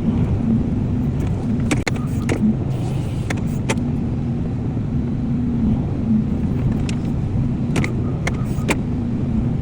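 Excavator's diesel engine running steadily, with several sharp knocks and clanks from the machine working, bunched about two to four seconds in and again near the end.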